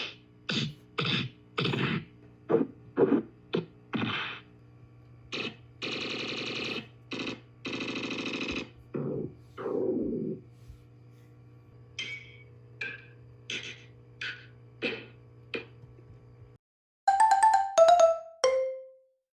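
A string of short electronic sound effects played one after another over a steady low drone: quick blips and clicks, a few longer buzzy sounds of about a second, then a final few loud tones that fall in pitch.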